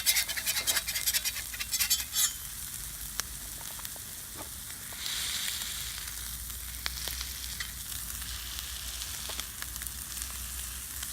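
Jarlsberg cheese crisps frying on a hot flat-top griddle: dense crackling spatter for the first two seconds, then a steady sizzle, with a brief louder hiss about five seconds in.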